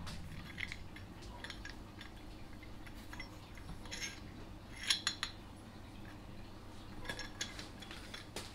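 A few light metallic clinks and taps, the loudest cluster about five seconds in, as a small metal bracket and its loose steel pin are handled and turned over.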